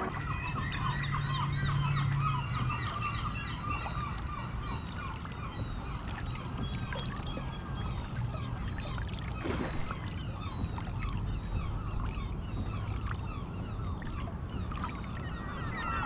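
Sea kayak being paddled, with water splashing and dripping, and many short bird chirps throughout.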